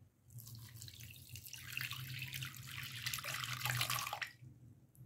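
Milk poured from a cup into a glass bowl: a steady splashing pour that grows louder as the bowl fills and stops a little after four seconds in.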